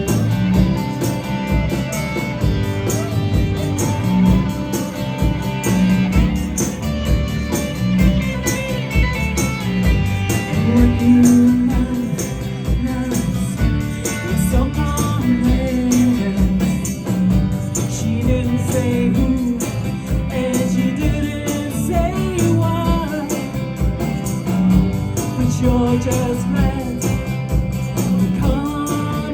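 Live indie pop band playing: strummed guitars over bass and drums, with some singing.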